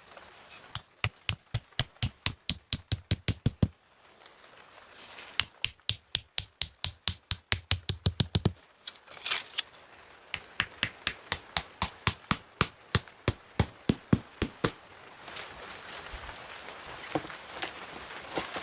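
Rapid, evenly spaced chopping or knocking strikes, about four a second, in three runs separated by short pauses, followed near the end by a steady rustling.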